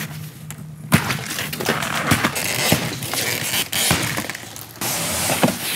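Plastic strapping bands around a cardboard glass box cut and snapping, with a sharp snap about a second in. Crackling and scraping of the cardboard with many small clicks follows, turning to a steadier rasping near the end.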